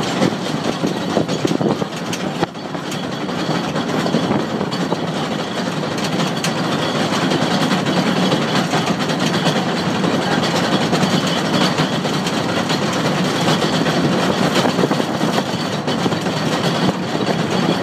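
Electric rack-railway train running along a rack section, heard from the driver's cab: a steady rumble and grind of wheels and cog wheel on the track, with a faint high steady whine on top.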